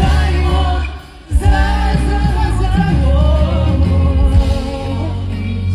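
Live pop-rock band playing with sung vocals over a heavy bass line; the music drops out briefly about a second in, then comes back in full.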